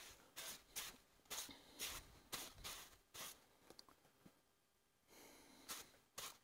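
Faint rubbing strokes, about two a second, of sawdust being brushed off the freshly sawn face of a sugar pine log; they thin out about four seconds in.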